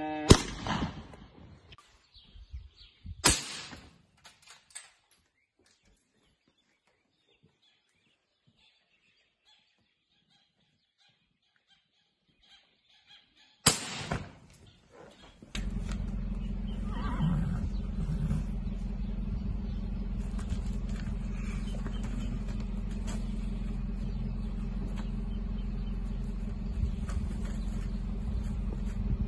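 Rifle shots at cattle. A sharp crack about three seconds in rings off briefly and is followed by near silence. A second crack comes about fourteen seconds in, then a steady low rumble to the end.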